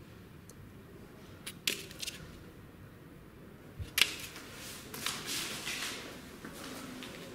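Paper and footstep handling noise on a debris-strewn floor: a few faint clicks, a sharp tap about four seconds in as an old photograph is put down, then a couple of seconds of rustling and scuffing.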